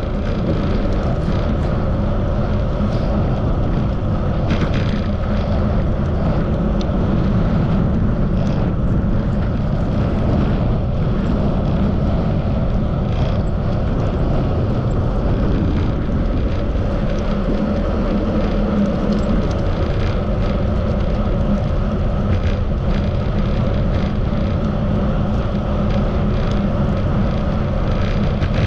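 Steady low rumble of wind and road noise on a camera riding along on a moving bicycle, with scattered faint ticks from bumps and rattles.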